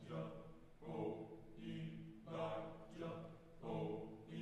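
Choir singing a spiritual in short, rhythmic, accented phrases, a new attack roughly every three-quarters of a second over low sustained voices.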